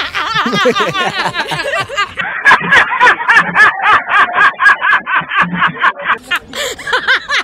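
Loud, hearty human laughter. About two seconds in it settles into a fast run of short, breathy bursts, about four a second.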